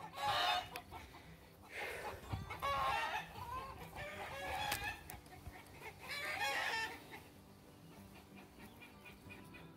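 Backyard chickens clucking and calling in about four separate bursts, quieter near the end.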